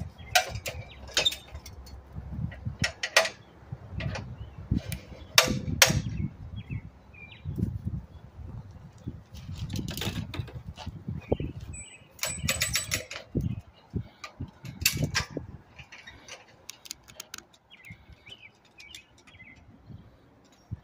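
Scattered metallic clanks and knocks from work at a tire-type well pipe puller, the sharpest a brief ringing clank about twelve seconds in.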